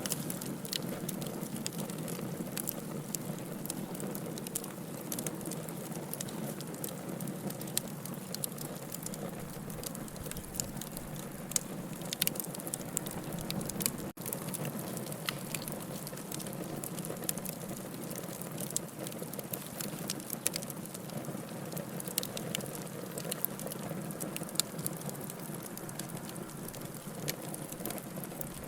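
Wood fire burning in a fireplace: a steady low rushing with frequent sharp crackles and pops. There is a split-second dropout about halfway through.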